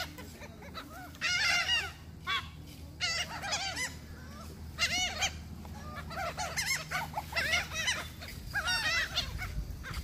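A flock of laughing gulls calling, several birds at once, in bursts of short arched yelping calls every second or so, over a low steady rumble.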